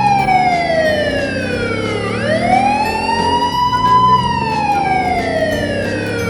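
Emergency-vehicle siren wailing, its pitch sliding slowly down and up: it falls, rises again about two seconds in, falls from about four seconds in and starts rising again near the end.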